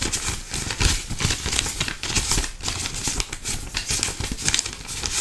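Close-miked ASMR mouth sounds: dense, irregular wet clicks and crackles into a condenser microphone, with hardly any voice.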